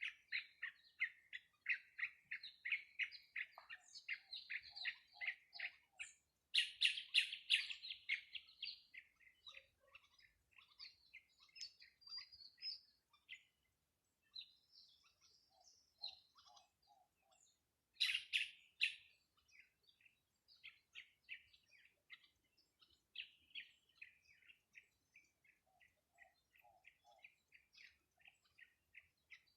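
Small birds chirping in rapid repeated series, about four or five short chirps a second, with denser, louder flurries of calls twice and a few lower notes now and then.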